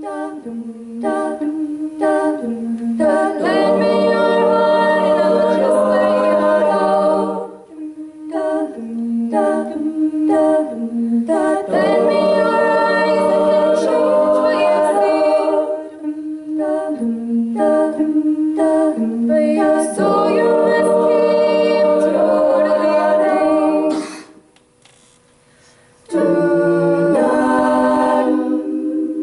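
Women's a cappella group singing in harmony, several voices together with no instruments; the voices stop for about two seconds near the end, then come back in.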